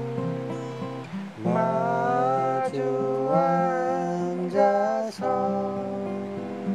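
Acoustic guitar playing a gentle song accompaniment of plucked and strummed chords. A wavering melody line glides over it from about a second and a half in until about five seconds in.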